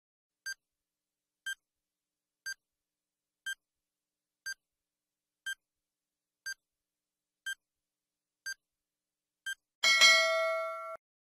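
Quiz countdown timer sound effect: ten short high ticks, one a second, then a loud ringing time's-up alarm of several held tones that lasts about a second and cuts off suddenly.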